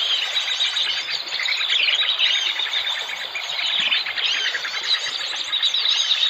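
A dense chorus of small birds chirping and trilling, many overlapping calls with quick high-pitched repeated notes.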